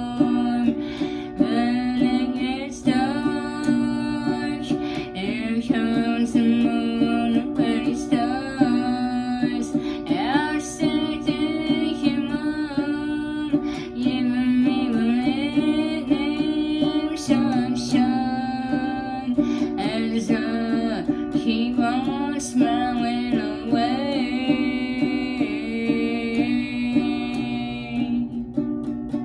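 Music: a plucked, guitar-like string instrument with a singing voice, continuous and fading near the end.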